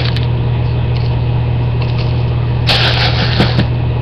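A steady low hum throughout, with about a second of rattling near the end as plastic airsoft BBs are poured into a confetti-popper casing.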